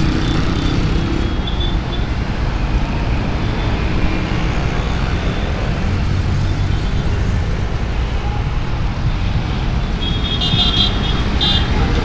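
Steady city street traffic: vehicle engines running and passing in a continuous low rumble. About ten seconds in there is a brief cluster of high-pitched pulsed tones.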